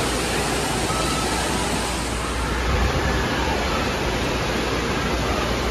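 Indoor water park ambience: a steady rush of splashing water from the pool and its fountain jets.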